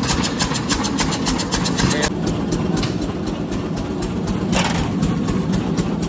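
Engine of a steam pressure washer running with a fast, even knocking, about eight beats a second, over a steady spray hiss. The knocking grows fainter about two seconds in.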